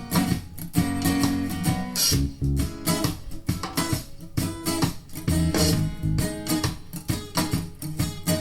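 Instrumental music led by plucked guitar, played back through a pair of bookshelf hi-fi speakers and recorded with a microphone.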